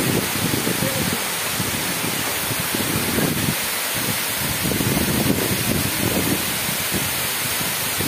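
Waterfall pouring into a rocky plunge pool: a steady, dense rush of falling water, with an uneven low rumble beneath it.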